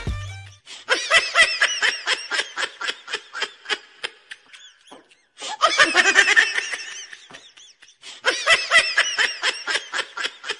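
Laughter in three bouts of a few seconds each, a quick rhythmic run of high-pitched ha-ha pulses with short gaps between bouts.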